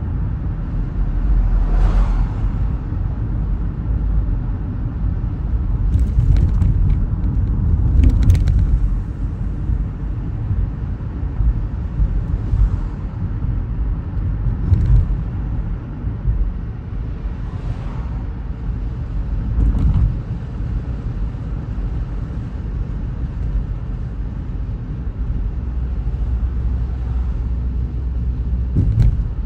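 A car driving along a road: a steady low rumble of road and engine noise, broken by several short knocks.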